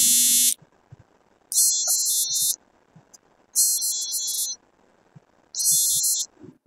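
Smartphone ringtone for an incoming call: a high-pitched electronic tone pattern about a second long, repeating roughly every two seconds.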